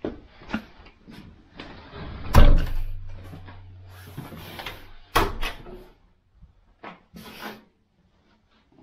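An interior door being handled and opened: a few knocks and latch clicks, with one heavy thump about two and a half seconds in and another sharp knock a little after five seconds.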